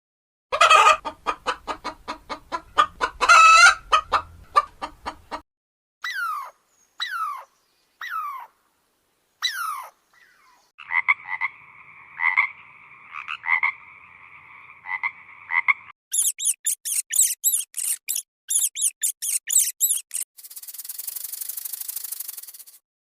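A run of different animal calls, one short clip after another. First comes a fast series of pulsed calls, then four falling calls about a second apart, then a steady two-toned trilling call. Rapid high chirps follow, and a steady hiss near the end.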